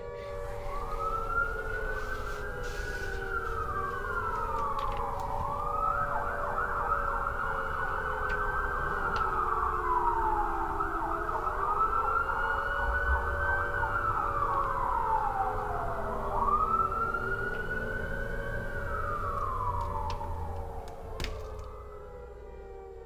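Warning sirens wailing: a higher siren rises and falls in slow wails about every five seconds, breaking into a fast yelp for a few seconds, over a lower wavering siren tone. The sirens fade near the end.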